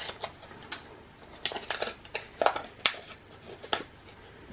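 Irregular small clicks and taps of a button badge press and its metal badge parts being handled and set in place, about ten in all.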